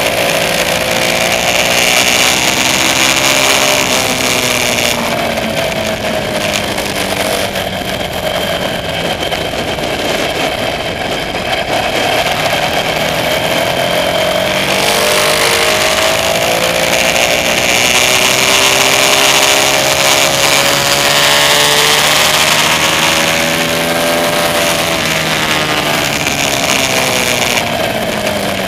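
KTM Super Duke R's V-twin engine pulling along on the road, its pitch rising and falling several times as the throttle is opened and eased.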